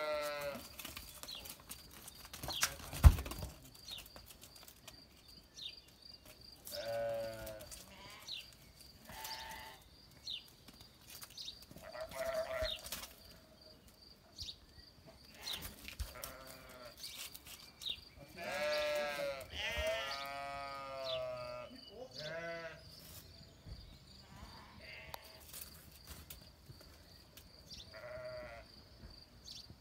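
Sheep bleating again and again, with the longest, loudest calls in the middle. About three seconds in comes one sharp knock as two rams butt heads.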